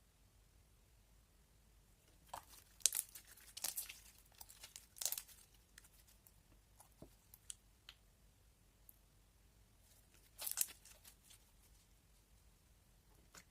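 Slime being pressed and stretched by hand, giving crackling and popping sounds: a run of crackles for about three seconds starting some two seconds in, and another short burst past the middle, with a few single pops between.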